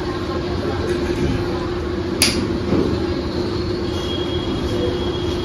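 Inverter refrigerator compressor, run directly from a home-made test drive board, humming steadily. There is one sharp click about two seconds in, and a faint high whine joins the hum near the end.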